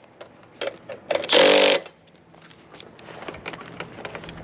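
A cordless power tool, an impact driver, runs in one short burst about a second and a half in, with scattered clicks and knocks of hardware being handled around it.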